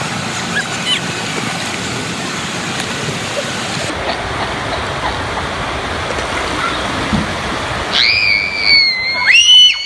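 Crowd noise echoing in a large hall, then after about four seconds water rushing through an enclosed tube water slide. Near the end a long, loud, high-pitched scream starts over the rushing water.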